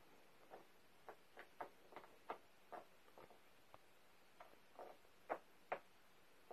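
Faint, irregular clicking and ticking of cats' claws catching on a woven rug as they play, with two louder clicks near the end.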